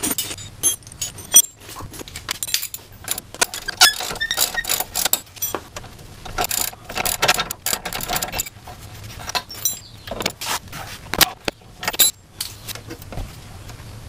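Steel hand tools clicking and clinking irregularly on the front suspension as a wrench works loose the nut and bolt of a worn lower ball joint, with a few sharper metallic knocks that ring briefly.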